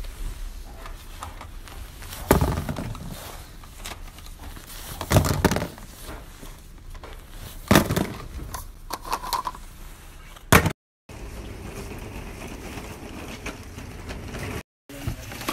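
Rustling handling noise over a low steady rumble, broken by four loud knocks a few seconds apart. The sound drops out twice for a moment near the end.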